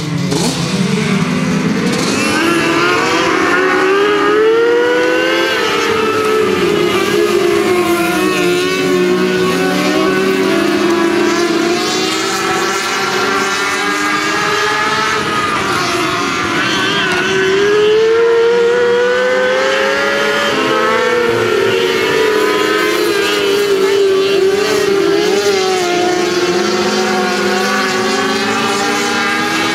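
A pack of mini sprint cars racing on a dirt oval, several engines running at once. Their pitch rises and falls again and again as the cars accelerate and back off around the track.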